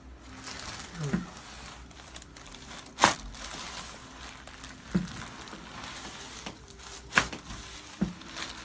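Rustling and crinkling of clothing and the treatment table during a chiropractic adjustment, broken by two sharp cracks, the loudest about three seconds in and another near seven seconds.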